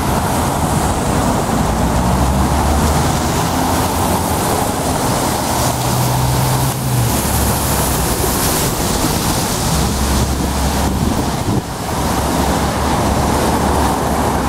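Traffic on a wet road: the steady hiss of tyres on rain-soaked asphalt and the low hum of passing buses and cars, with wind on the microphone.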